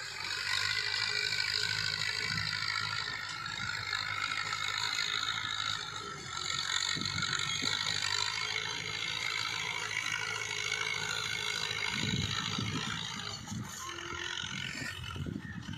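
New Holland Fiat 640 tractor's diesel engine running steadily under load, pulling an 18-disc harrow through dry soil, heard from a distance. Irregular low rumbling comes in near the end.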